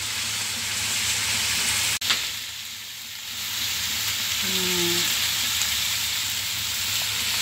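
Fish balls, sliced onion and chicken wings sizzling steadily as they fry in an oiled wok. A single sharp knock about two seconds in.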